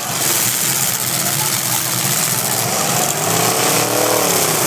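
Demolition derby cars' engines running loudly together, with one engine revving up and back down from about three seconds in.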